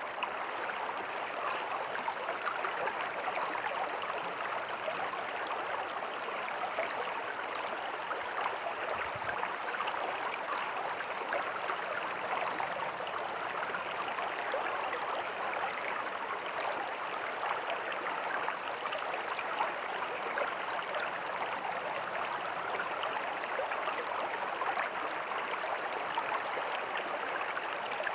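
Small creek water flowing and splashing over rocks in a tiny waterfall: a steady, even rushing with fine bubbling.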